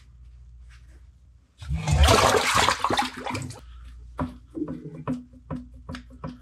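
A loud rushing, rustling noise lasting about two seconds, then paper towel rustling with soft taps as a sheet is laid over raw shrimp and pressed down by hand to dry them.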